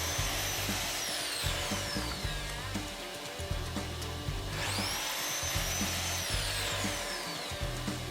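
Miter saw's electric motor cutting wood twice: it is already at full speed as the sound opens and winds down with a falling whine within about two seconds, then spins up again about four and a half seconds in, runs briefly and winds down near the end. Background music plays underneath.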